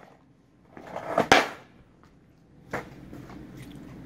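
Skateboard rolling on pavement, with a sharp knock about a second in and another near three seconds, and a low steady rolling noise at the end.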